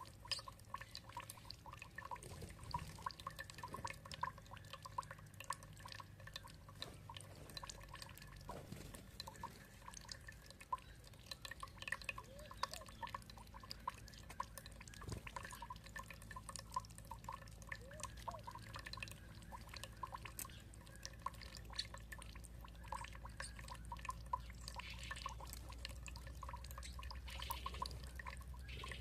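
Water dripping and trickling in quick, irregular drops over a low steady rumble, with a few faint short chirps now and then, likely birds.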